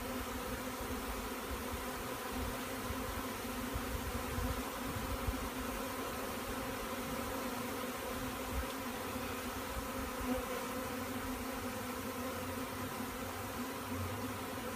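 A swarm of honey bees buzzing: a steady, unbroken hum of many bees.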